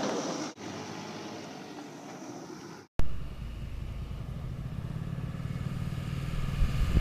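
Truck engine running. The sound cuts out briefly twice, then comes back with a steady, low engine note.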